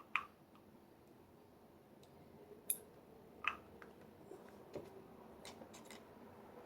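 Scattered light clicks and taps of small lock pins and tools being handled during padlock disassembly, about six separate clicks over a few seconds.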